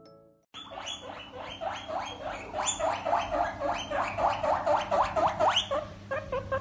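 A rapid run of short, rising squeaks from a small animal, several a second, starting about half a second in.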